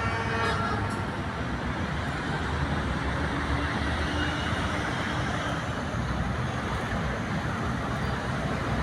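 Steady road traffic noise with a low rumble. A horn sounds in the first half second, then stops.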